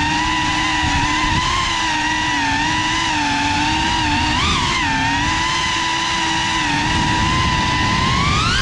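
GEPRC CineLog 35 cinewhoop quadcopter's motors and propellers whining in flight, the pitch wavering up and down with the throttle and rising near the end, over a low rumble of wind and prop wash.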